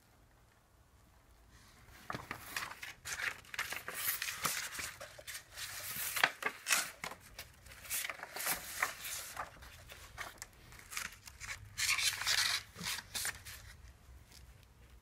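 Rustling, crinkling and scraping of paper or plastic sheets being handled, in irregular bursts with many small clicks, starting about two seconds in and dying down near the end.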